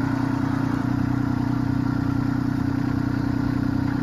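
Kubota LX2610 compact tractor's three-cylinder diesel engine idling steadily, its note changing slightly about a second in.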